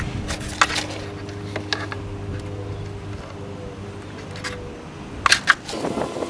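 A few sharp clicks and knocks of hands handling plastic engine-bay parts and connectors, with a louder pair of knocks near the end, over a faint steady hum.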